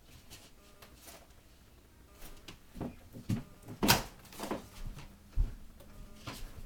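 A few scattered knocks and thuds, the sharpest about four seconds in, followed by a single dull thump a moment later.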